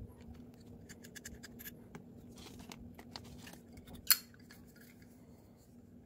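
Small metallic clicks and scraping as a Zippo lighter's steel insert is worked with a small tool and handled in its case, then one sharp, loud metal click about four seconds in.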